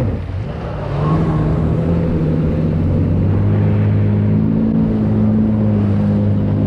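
Jet ski engine speeding up about a second in, then running steadily at high revs with its pitch creeping slightly higher.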